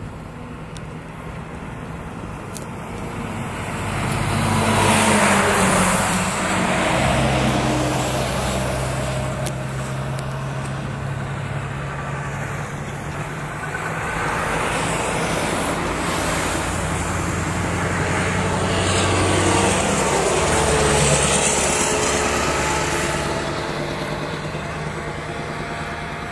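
Heavy trucks driving past, their low engine note holding steady and then shifting pitch in steps. Tyre and air noise swells as each one goes by, loudest about five seconds in and again around twenty seconds in.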